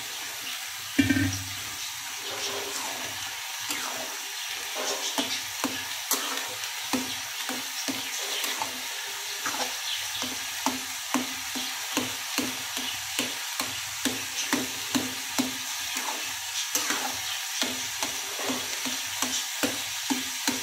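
Flat metal spatula stirring grated carrots in milk in a steel kadhai, scraping and tapping the pan about twice a second over a steady sizzle of the halwa cooking. One loud knock of the spatula on the pan about a second in.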